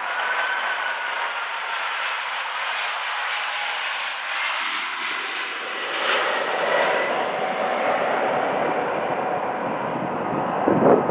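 Lockheed C-5 Galaxy on final approach, its four turbofan engines running with a steady rushing noise and a faint whine that falls slightly in pitch. Wind buffets the microphone near the end.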